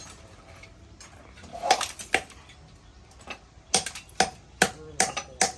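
Metal striking metal: about eight sharp clanks, each with a short ring, irregularly spaced and coming faster in the second half.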